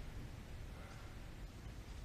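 Quiet room tone: a steady low hum and hiss with no distinct event.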